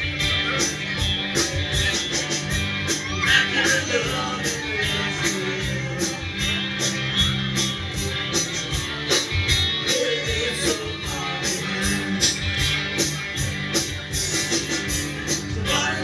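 Live band playing a country-rock song: electric guitars over drums with a steady cymbal beat, with singing at times.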